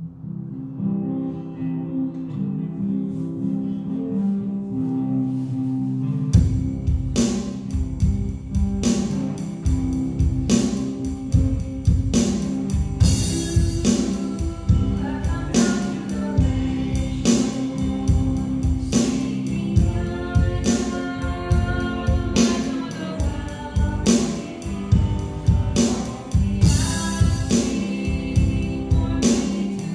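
Worship band playing an instrumental passage: sustained chords at first, then drums and bass come in about six seconds in with a steady, slow beat.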